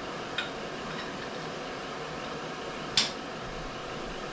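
Light metal clicks while the vertical head of a Brown & Sharpe milling machine is being fitted: a small click about half a second in and a sharper, louder knock about three seconds in, over a steady background hiss.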